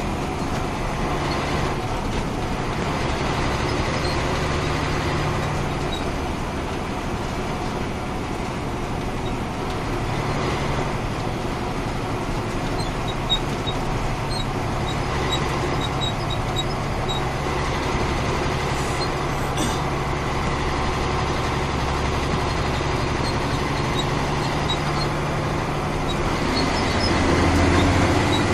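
Caterpillar 3406 inline-six diesel in a 1994 Ford L9000 truck, running steadily as the truck drives down the road. The engine note eases off about six seconds in, picks back up around ten seconds, and swells louder near the end.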